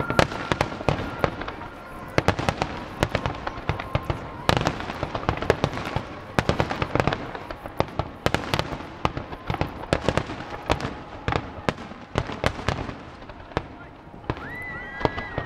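Large aerial fireworks barrage: shells bursting in rapid succession, dozens of sharp bangs and crackles piling over one another without a break.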